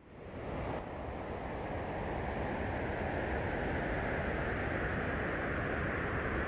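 Snowstorm wind sound effect, fading in over the first second and then blowing steadily, with a faint whistle that slowly drops in pitch.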